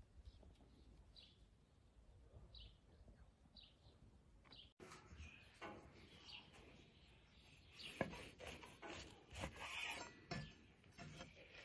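Faint bird chirps, a few short high calls, then after a cut soft rustling and crackling with a few sharp taps: a hand handling bacon-wrapped meat on a wooden cutting board, loudest near the end.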